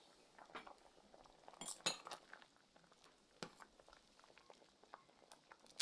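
A few faint clinks and knocks of pots and utensils, scattered and brief, with the strongest about two seconds in.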